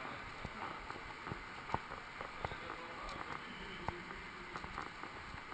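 Footsteps of people walking on a cave walkway: light irregular steps and knocks, about two a second, over a steady hiss.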